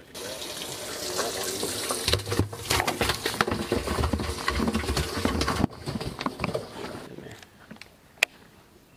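Water rushing and splashing in a boat's livewell, with knocks and sloshes as a bass is put in. The water noise stops suddenly a little under six seconds in, leaving a single sharp click near the end.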